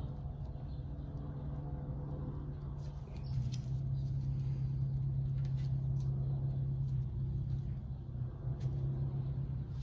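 A steady low machine hum, which gets louder about three seconds in, with faint scrapes and clicks of a plastic spreader smoothing body filler that is starting to set up.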